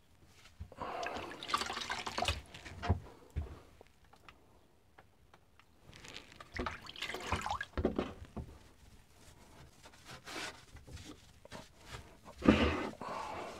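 A wet sponge being dunked, swished and squeezed out in a bucket of water, with splashing and dripping. It comes in separate bursts: about a second in, again around six to eight seconds in, and loudest near the end.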